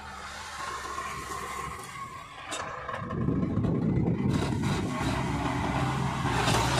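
Sonalika tractor's diesel engine running steadily under load while driving a Maschio rotary tiller that churns through the soil. It grows louder about three seconds in.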